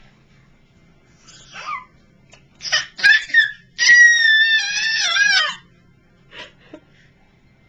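Toddler squealing with laughter: a few short high squeals, then one long, very high-pitched squeal of nearly two seconds about four seconds in, and a couple of small sounds after it.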